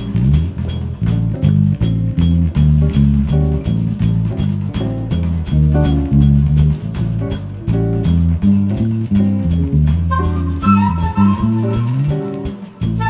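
Instrumental band jam in a jazzy style: electric bass walking through low notes and electric guitar, with the drum kit ticking steadily on the cymbals. A higher melody line joins near the end.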